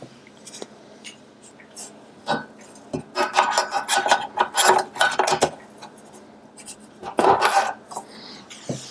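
Accessories being fitted onto a metal pegboard: a run of clicks, rattles and scrapes, busiest from about three seconds in and again near the end.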